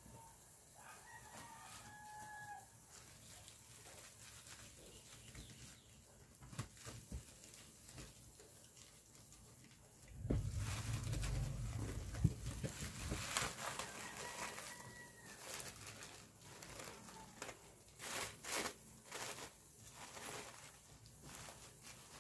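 Jute burlap mesh and a plastic tablecloth rustling and crinkling as hands fold and press the wrapping, with a louder stretch of bumping and rustling about ten seconds in. A bird calls twice in the background, each call about two seconds long.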